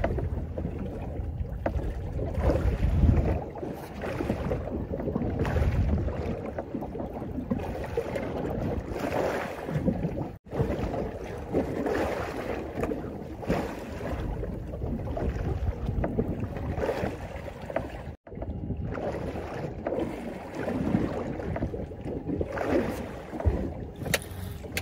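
Wind buffeting the microphone over water slapping against a drifting fibreglass boat's hull, in uneven gusts. The sound cuts out suddenly for a moment twice, about ten and eighteen seconds in.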